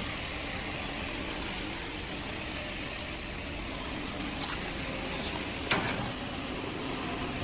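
Steady hiss of workshop noise, with one sharp metallic knock a little over halfway through as a cut steel part is handled on the plasma table's slat bed.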